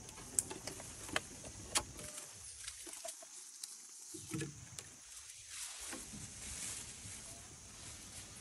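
Baby macaque scrambling on wooden boards: a few sharp taps and knocks in the first two seconds, then softer scuffing, over a faint steady high hiss.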